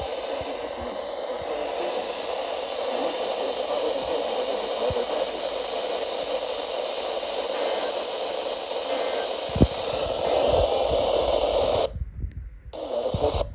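Radio static: a steady hiss from a radio receiver, cutting off suddenly about twelve seconds in, with a few low thumps near the end.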